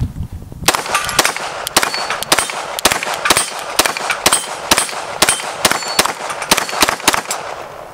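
Rapid pistol fire: a long string of sharp shots, about three or four a second, starting about a second in and running almost to the end.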